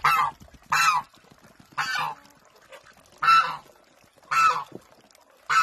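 Domestic goose honking: six loud, short honks about a second apart.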